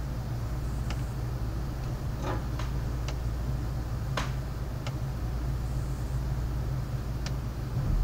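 Water drips ticking sharply and irregularly, about seven times, the loudest about four seconds in, over a steady low rumble during a night thunderstorm.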